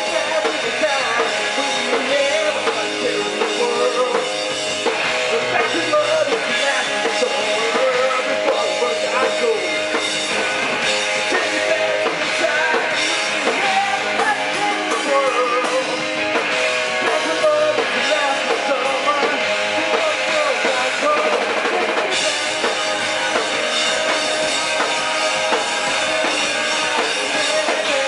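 Rock band playing, with a drum kit driving a steady beat under guitars.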